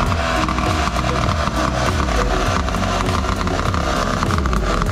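Petrol disc cutter (cut-off saw) engine idling steadily with its blade off the work.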